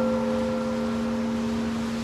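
A church bell cast in 1825 ringing on after a stroke of the blagovest toll. Its deep hum and several higher overtones hold steady and slowly die away.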